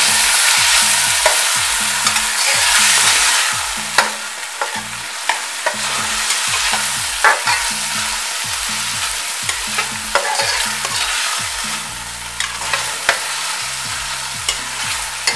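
Chopped onion, green pepper and tomato sizzling in hot oil in an aluminium caldero while a metal spoon stirs them, with scattered clicks and scrapes of the spoon against the pot. The sizzle is loudest for the first few seconds, then settles to a softer hiss.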